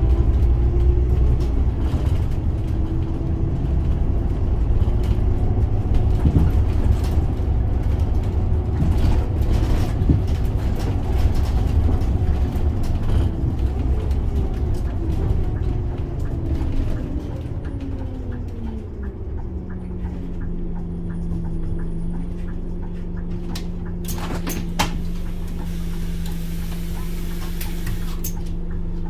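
Scania OmniLink three-axle bus's biodiesel engine heard from inside, running with a heavy low rumble as the bus drives, then its note falls as the bus slows to a stop and settles into a steady idle hum. A few sharp clicks come later, during the idle.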